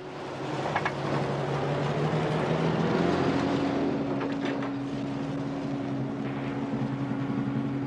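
Panel truck's engine revving and running as it pulls away and drives off, a loud steady rumble that swells about half a second in.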